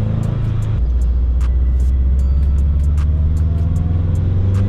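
Turbocharged EJ25 flat-four of a 2007 Subaru WRX STI pulling on the road: a steady low drone that drops briefly about a second in, then rises in pitch near the end as the car accelerates.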